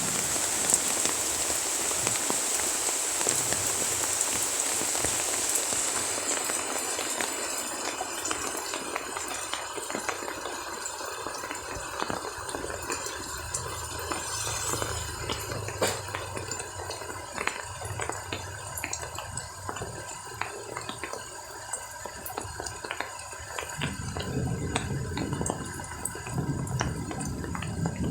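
Rain falling, a dense steady hiss that eases after about six seconds into scattered drips and patters. Near the end a lower rush of running water comes in.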